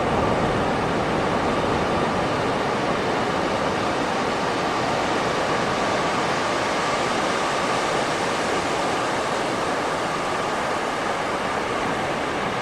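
Steady, unbroken wash of ocean surf on a beach, with no separate wave breaks standing out.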